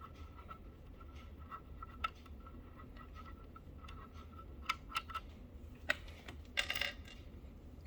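Small metal screws and a screwdriver clicking and clinking as screws are taken out and set down, a few sharp separate clicks and a brief rattle near the end, over a faint low hum.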